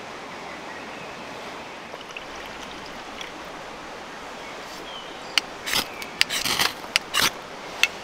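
Steady rushing outdoor background noise. From about five seconds in comes a quick run of sharp clicks and short hissy spurts as a red can is worked over a small folding metal camp stove.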